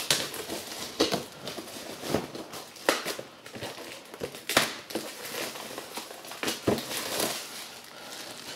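Packaging of a boxed Blu-ray gift set crinkling, rustling and tearing in irregular bursts with a few sharper cracks as it is forced open with some difficulty.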